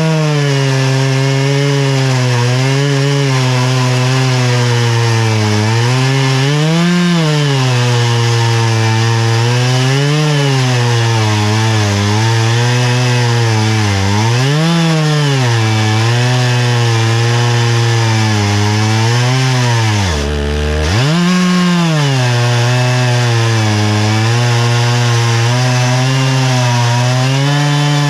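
Stihl chainsaw on an Alaskan mill ripping lengthwise through an oak log, the engine under heavy load with its pitch swelling and sagging every few seconds as the bar works through the hardwood. About twenty seconds in the revs drop sharply, nearly bogging, then pick back up.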